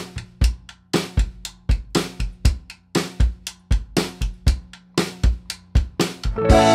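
Background music: a steady drum-kit beat of kick and snare playing alone, with the full band, guitar included, coming in near the end.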